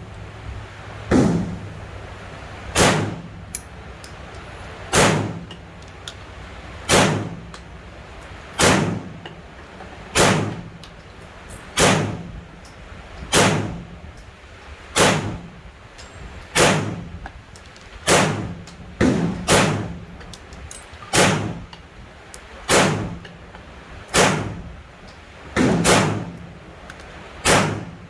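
Gunshots fired one at a time at a slow, steady pace, about one every one and a half to two seconds, some eighteen shots in all, each a sharp crack with a short ring after it; two come close together about two-thirds of the way through.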